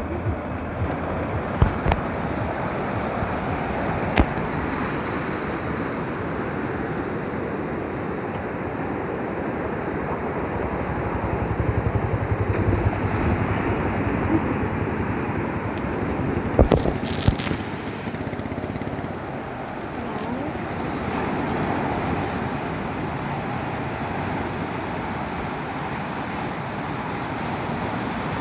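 Sea waves washing onto a beach: a steady, continuous roar of surf rising and easing a little, with a few sharp knocks early on and again a little past the middle.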